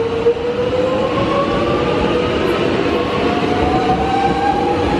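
Electric suburban train (X'Trapolis 100 EMU) accelerating, its traction motors whining with several tones rising steadily in pitch as it gathers speed, over a continuous rumble from the wheels on the rails.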